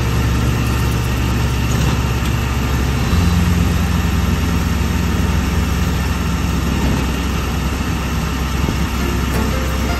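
Engine of a moving road vehicle, heard from inside while riding: a steady low drone that shifts to a different pitch about three seconds in.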